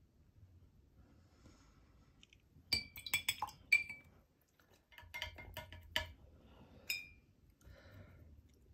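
A paintbrush clinking against a glass water container, in two runs of quick ringing taps about three and five seconds in and a last single clink near seven seconds, as the brush is rinsed and swapped.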